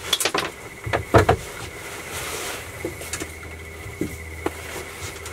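A few sharp knocks and clatters of handling on a small boat, the loudest about a second in, over a steady low hum and a faint thin high tone.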